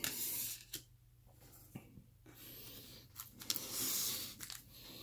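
Trading cards handled in the hands: cards sliding and rubbing against each other while being sorted, with a few light taps, the rustling loudest about four seconds in.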